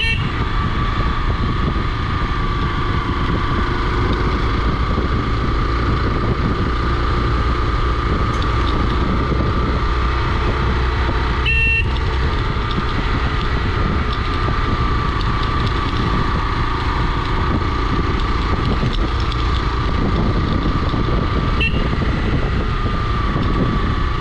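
Hero XPulse 200 single-cylinder motorcycle running steadily on the move, heavily masked by wind rumble on the rider's microphone. A few brief sharp ticks sound near the start, about halfway through and near the end.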